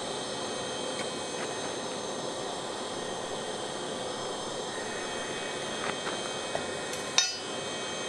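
Steady rushing noise with a few small clicks, then about seven seconds in a single sharp metallic clank with a brief ringing: the crucible of molten bronze being set down in its steel ring stand after the pour.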